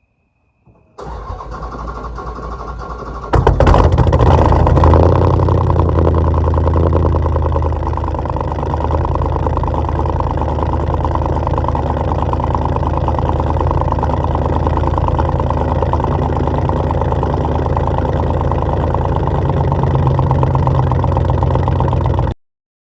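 Freshly rebuilt Dodge Charger 5.7 HEMI V8 being started: the starter cranks for about two seconds, the engine catches with a loud flare, then settles into a steady idle. The sound cuts off suddenly near the end.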